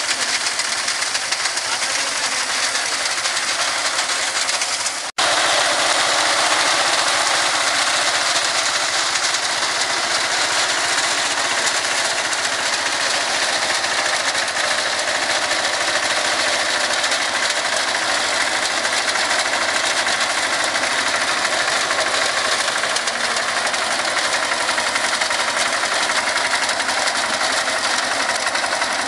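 Captain mini tractor's engine running under load while its front-mounted reaper's cutter bar clatters steadily through standing dry grain. The sound cuts out for an instant about five seconds in, then carries on.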